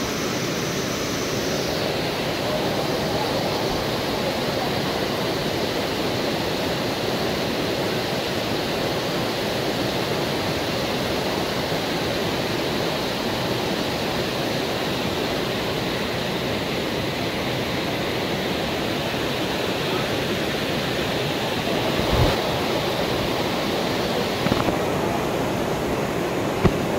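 Steady rushing of a stream and waterfall, with a few light knocks near the end.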